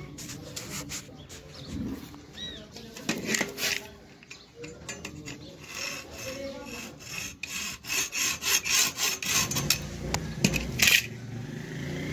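Steel parts handled and worked by hand: clinks and knocks of metal on metal, then a run of quick, rhythmic scraping strokes, about three a second, through the second half.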